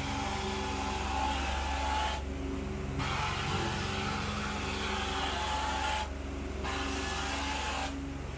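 Carpet-cleaning extraction wand spraying at 400 PSI and sucking water back up through its head, a rushing hiss on each stroke that breaks off three times as the wand lifts, the last near the end. Underneath it the extraction machine drones steadily.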